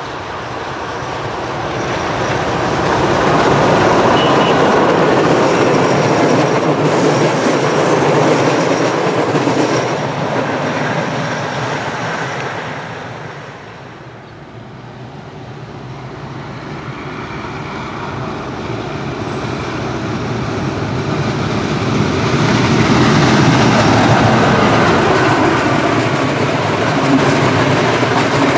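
A train running past, its wheels and running gear making a loud rumble. The noise swells in the first few seconds, eases off about halfway through, then builds to a second loud peak near the end.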